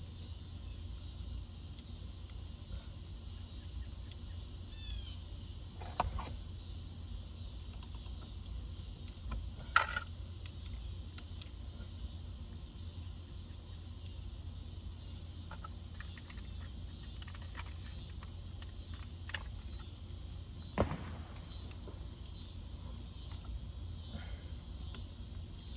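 Crickets chirping steadily over a low hum, with a few sharp clicks and knocks of parts being handled about six, ten and twenty-one seconds in, the one at ten seconds the loudest.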